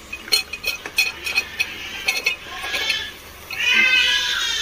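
Cubed potatoes and peas tipped from a steel bowl into a pressure cooker, giving a run of clinks and knocks against the metal over the first couple of seconds. Then, about three and a half seconds in, comes a loud, high, wavering squeal.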